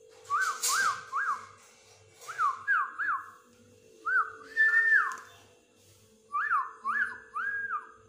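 Whistling: short clear notes that each slide up and back down, in four quick runs of mostly three notes, with one longer held note near the middle. A steady low hum runs underneath.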